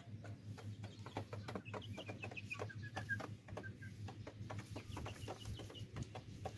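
Young chickens cheeping in quick runs of short, high, repeated notes, over a scatter of light taps.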